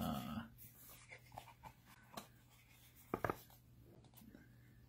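Faint handling of earbud packaging: a plastic insert tray is lifted and worked out of a cardboard box, giving small scrapes and light clicks, with a couple of sharper clicks a little after three seconds in.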